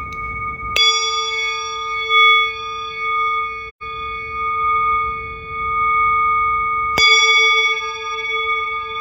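Singing bowl struck twice, about a second in and near the end. Each strike brings in bright upper tones that fade, over long, steady ringing tones that waver slightly. The sound cuts out for a split second near the middle.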